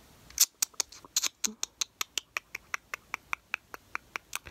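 A rapid, even series of sharp clicks, about five a second, starting about half a second in and stopping just before the end.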